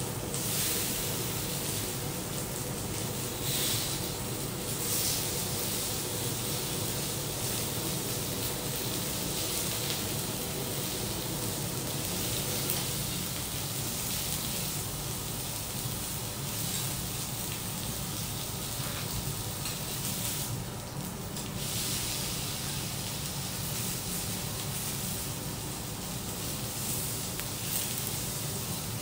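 Cubes of wagyu beef sizzling steadily on a hot teppanyaki steel griddle as they are cut and turned.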